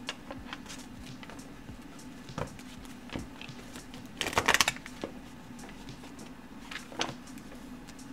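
Deck of tarot cards being handled and shuffled by hand: scattered soft taps and slides of the cards, with a short rapid flutter of cards about four seconds in.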